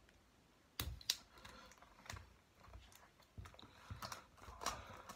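Light, sharp clicks and taps of a box and its packaging being handled, about ten of them spread irregularly.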